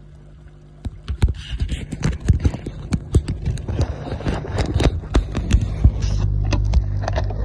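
Water splashing and knocking against a camera as it is pushed down into a water tub: a rapid run of sharp splashes and knocks from about a second in, giving way near the end to a steady low underwater rumble once the camera is submerged.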